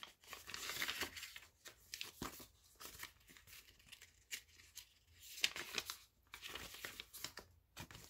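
Paper pages of a handmade journal rustling and crinkling as they are turned and handled, in several short bursts of rustling with small clicks between them.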